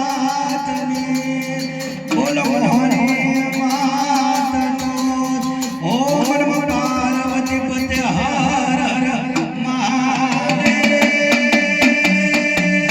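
Live Gujarati dakla devotional music: singing over sustained instrumental tones with a steady percussive beat, the voice lines entering anew about two and six seconds in.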